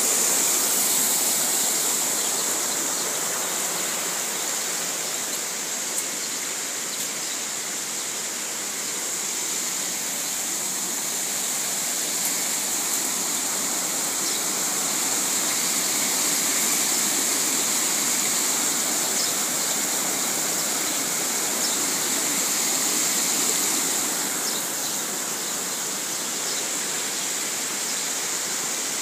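Steady rush of running water, an even hiss with no distinct events.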